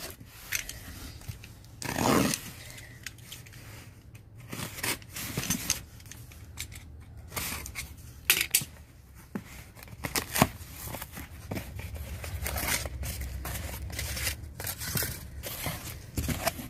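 Cardboard shipping boxes being opened by hand: packing tape cut and torn, flaps scraping, and boxes knocking, in short irregular scrapes and thumps, the loudest about two seconds in.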